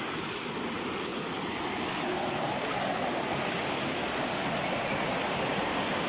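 Fast, muddy mountain stream rushing and splashing over rocks as a steady wash of white water, a little louder after about two seconds.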